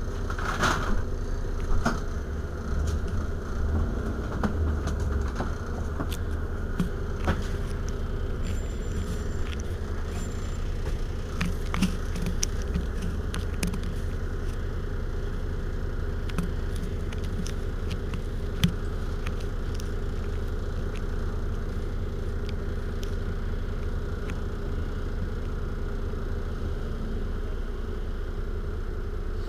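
Iveco Urbanway 12 city bus engine idling steadily while the bus stands at a stop, with a few scattered clicks and knocks.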